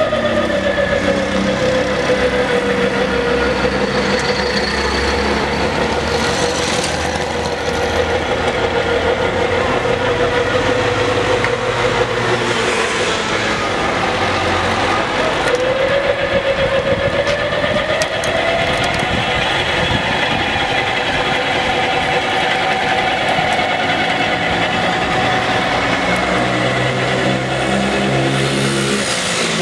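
Electric sugar cane juicer's motor running steadily as cane stalks are fed through its crushing rollers, its whine sinking in pitch near the start and rising again about halfway through.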